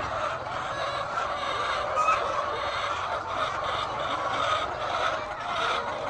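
A flock of chickens clucking and calling, many voices overlapping without a break, with one louder call about two seconds in.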